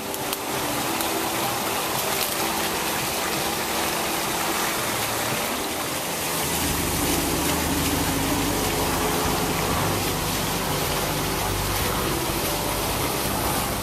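Small garden fountain's water jets splashing in a steady rush, with a low rumble joining about halfway through.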